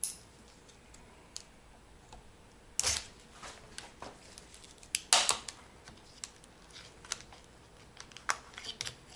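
Screwdriver prying open the plastic case of a laptop battery pack clamped in a vise: irregular sharp cracks and clicks as the case is forced apart, the loudest about five seconds in.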